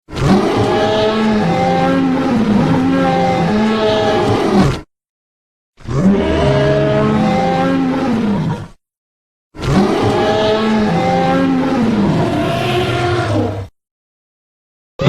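Three dinosaur roar sound effects in a row, each a few seconds long and cut off by a short silence, with a rough pitched tone that wavers up and down.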